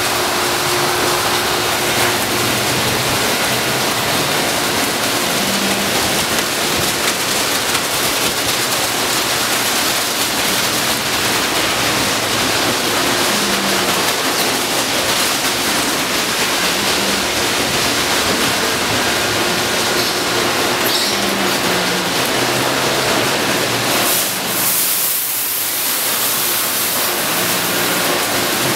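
Automatic car wash tunnel running: a steady rush of water spraying onto a car while rotating brushes and their motors work. About 24 seconds in, a sharper, higher hiss of spray comes in as the car passes through a mist of water.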